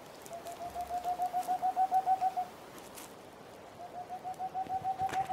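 Male Tengmalm's (boreal) owl giving his courtship song, calling a female to his nest hole. It is two runs of rapid, soft hoots on one pitch, about seven a second, each run growing louder.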